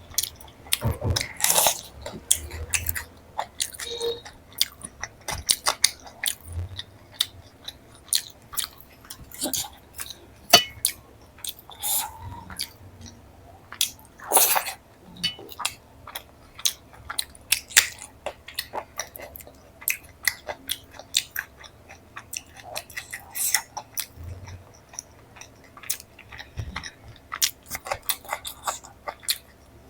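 Close-miked eating sounds: a person chewing and biting paneer curry with Indian flatbread, with many wet mouth clicks and occasional soft crunches at an irregular pace.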